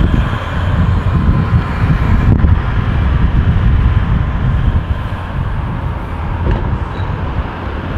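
Skid-steer loader's diesel engine running steadily, with wind rushing over the microphone.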